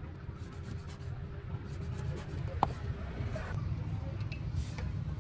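Meat cleaver chopping and scraping raw beef on a wooden chopping block: light scattered knocks and scrapes, with one sharp ringing knock about halfway, over a steady low rumble.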